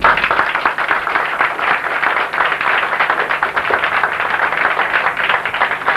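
Audience applauding steadily after a song ends.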